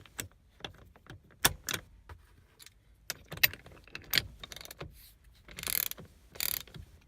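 Hand socket ratchet on an extension tightening a threadlocked bolt: scattered clicks and knocks, then a run of rapid ratchet clicking about five and a half seconds in.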